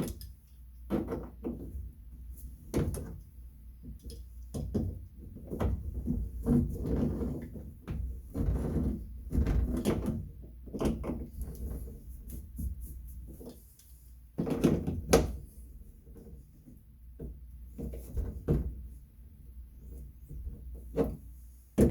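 Hand tool working on the shower valve stems as they are tightened back into the valve body: irregular clunks, knocks and short scrapes of metal, with a sharper knock about fifteen seconds in.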